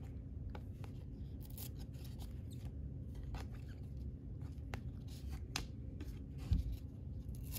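Baseball cards being slid off the top of a handheld stack one after another, giving irregular soft flicks and swishes of card stock rubbing on card stock. There is a single low thump about six and a half seconds in.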